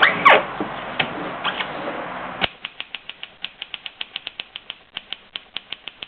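A short downward-sliding sound over a noisy bed near the start, then from about two and a half seconds a rapid, even run of typewriter key strikes, about six a second.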